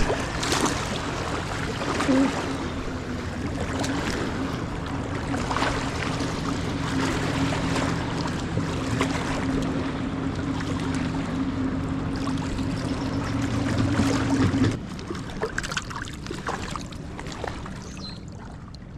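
Small boat motor running steadily at one pitch, with water and rustle noise over it; it cuts off suddenly about fifteen seconds in.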